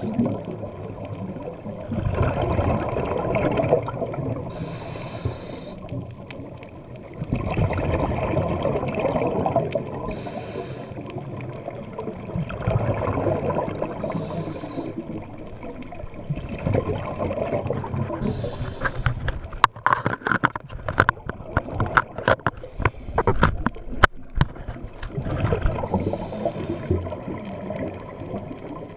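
Scuba diver breathing through a regulator underwater: a bubbly exhalation every four to five seconds, with a short hiss of inhalation between them. For several seconds past the middle, a run of sharp clicks and crackles.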